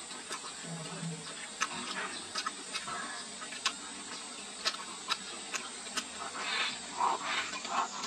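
Close-up chewing of crispy fried pork and green peppers: irregular sharp crunches over soft wet mouth noises.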